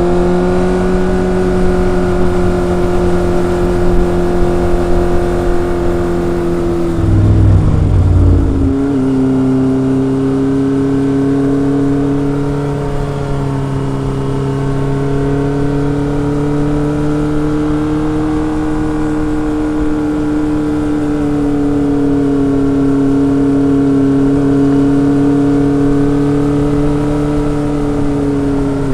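Kawasaki ZRX motorcycle's four-cylinder engine and exhaust under way. The engine note drops in pitch at a gear change about seven seconds in, then runs on steadily, rising and falling slightly.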